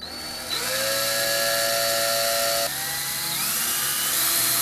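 Cordless drill with a small bit boring a hole through ABS plastic pipe. The motor's whine climbs about half a second in as it spins up, holds steady, then steps up in pitch again after the middle.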